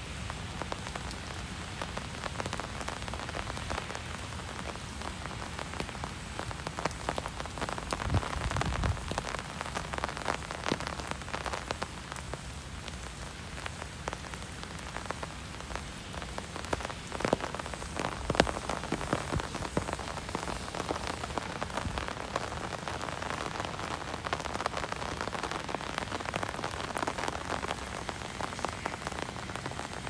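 Steady rain falling, with many small drops tapping close by on an umbrella overhead and a few louder drips now and then.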